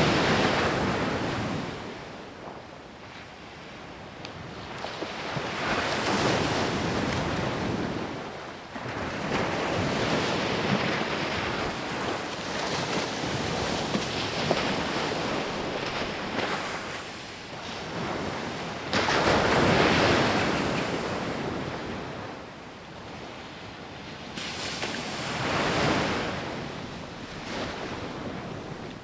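Ocean surf breaking on a beach, each wave swelling to a rush of white water and then fading, the surges repeating every few seconds.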